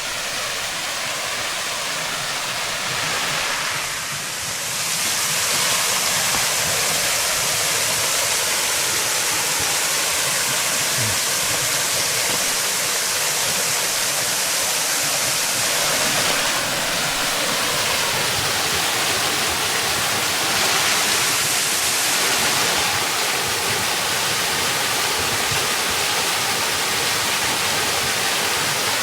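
Waterfall rushing steadily, a continuous spray of water noise that grows louder and brighter about five seconds in.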